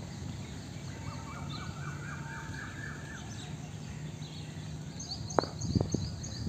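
Birds chirping in quick repeated series of rising notes, then about five seconds in a sharp knock and two lighter ones as a cricket ball is bowled and met by the bat on a concrete practice pitch.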